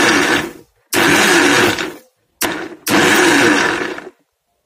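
Electric mixer grinder pulsed in short bursts of about a second each, with a brief blip between two of them, grinding peeled orange segments with water. It is run slowly in pulses so the seeds are not crushed, which would make the juice bitter. It stops about four seconds in.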